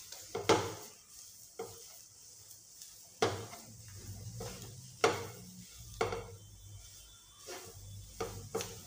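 Spatula mashing and stirring a thick beetroot and potato mixture in a non-stick frying pan, with a sharp scrape or knock against the pan every second or so over a faint sizzle.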